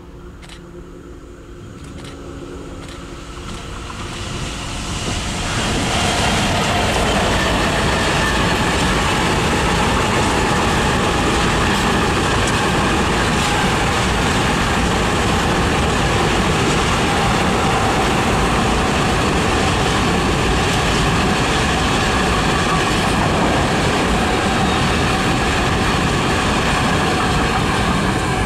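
A long freight train of covered hopper wagons passing close by. The locomotive's hum is faint at first and swells over the first five or six seconds as it comes up. Then the wagons roll past with loud, steady wheel-on-rail noise.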